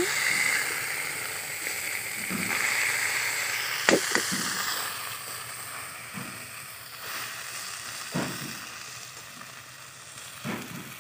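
Broken-up katla fish head frying in mustard oil in a metal kadai, sizzling while a metal spatula stirs it. A few sharp clinks of the spatula hit the pan. The sizzle grows quieter toward the end.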